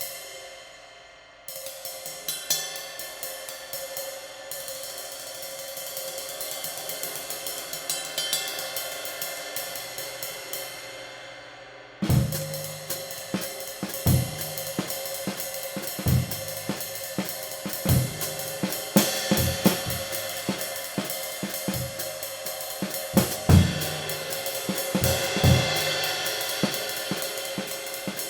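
A handmade 20-inch B20 bronze medium ride cymbal struck once and left to ring, then played alone with a stick in a steady ride pattern. About twelve seconds in, a drum kit joins with bass drum and snare while the ride keeps going over the groove.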